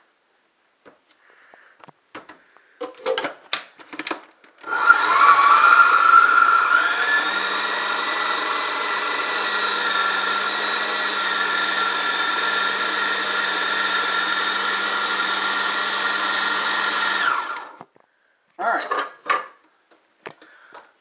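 Food processor motor running for about thirteen seconds, chopping a thick cookie batter of butter, coconut flakes and pecans. It rises in pitch as it spins up, holds a steady whine, then switches off suddenly. A few clicks and knocks come shortly before it starts and after it stops.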